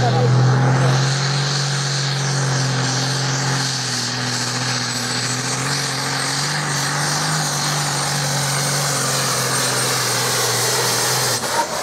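Tractor-pull vehicle's engine running hard at high revs through a pull, its pitch holding nearly steady with a thin high whine above it, then cut off abruptly near the end.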